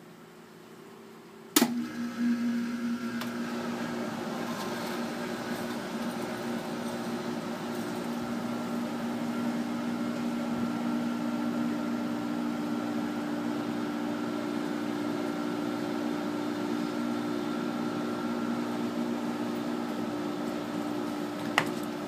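Geothermal heat pump starting up in cooling mode: a sharp click about a second and a half in, then the unit runs with a steady hum. Another single click near the end.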